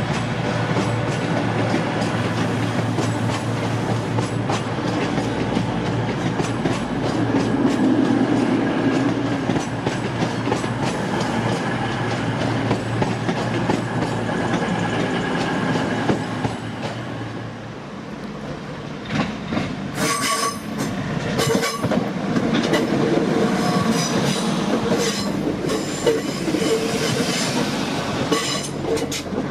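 A passenger train running into a station with a steady rumble and hum. After a dip, a train's coaches pass close by, their wheels clicking over rail joints in quick clusters.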